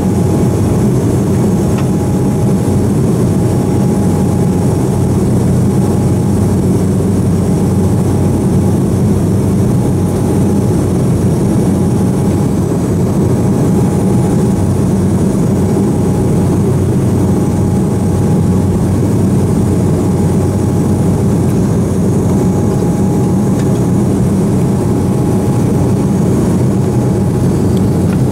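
Steady cabin drone of an Embraer E190 airliner in flight, its twin GE CF34-10E6 turbofan engines and the airflow heard from inside the cabin, with a faint higher hum that comes and goes.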